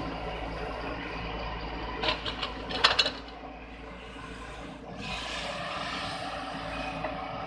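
JCB JS140 tracked excavator's diesel engine running under hydraulic load while it digs. A short cluster of sharp clanks and scrapes comes about two to three seconds in, and from about five seconds in the engine note becomes fuller and brighter as the machine works harder.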